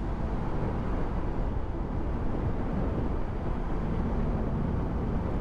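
Motorcycle riding at speed on a highway: a steady rush of wind and road noise with the engine running underneath, even throughout.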